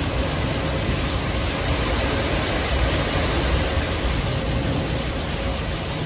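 Severe thunderstorm: strong wind and heavy rain making a loud, steady rushing noise, with a faint steady tone underneath.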